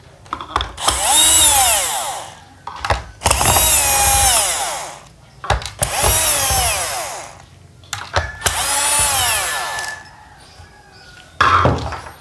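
Electric screwdriver with a Phillips bit backing screws out of the housing of a Harman Kardon Onyx 3 speaker. It runs four times, about two seconds each, its whine rising as the motor spins up and falling as it stops. A short knock comes near the end.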